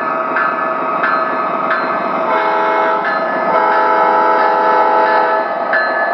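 O-gauge model diesel locomotives running on three-rail track, with the onboard sound system sounding a multi-note diesel horn: a short blast about two seconds in, then a longer one. A locomotive bell dings about every two-thirds of a second before and after the horn.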